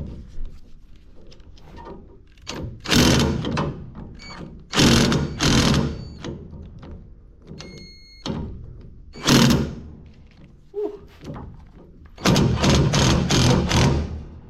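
Impact wrench hammering in several short bursts, each a second or two long with pauses between, on a seized strut rod fastener that it has not yet broken loose.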